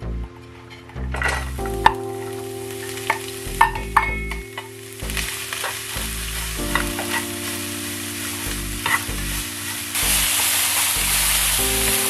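Carrot pancake mixture sizzling as it fries in an oiled pan, with a few sharp utensil clicks in the first few seconds. The sizzle builds and turns louder about ten seconds in.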